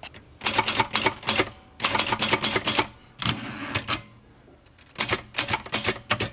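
Old portable mechanical typewriter being typed on: several bursts of rapid key strikes, each about a second long, with short pauses between them.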